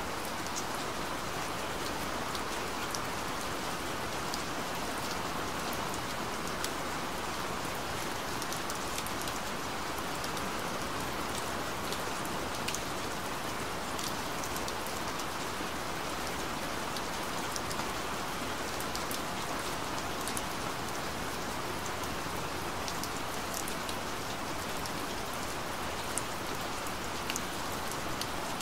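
Recorded rain falling steadily on a surface, an even hiss with scattered sharp drop ticks.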